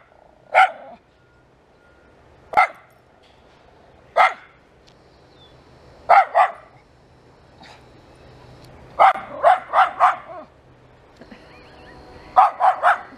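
Dog barking at the fence in short, sharp barks: single barks a second or two apart at first, then a pair, then two quick runs of about four barks each in the second half.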